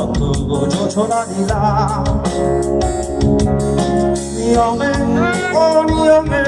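Live band playing a song, a man singing with vibrato over keyboard, guitars, bass guitar and drum kit.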